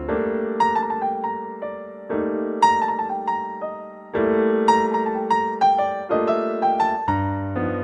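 Slow, gentle piano music: a melody of single notes over held chords that change about every two seconds.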